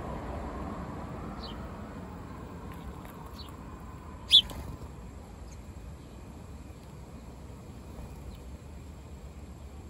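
House sparrows at a feeder: a few faint, short chirps scattered through, and one loud, sharp, brief sound about four seconds in, over a steady low background rumble.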